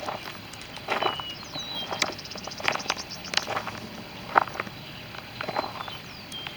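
Irregular taps and knocks at uneven intervals, with faint short high chirps in the background and a brief fast run of high ticks about two seconds in.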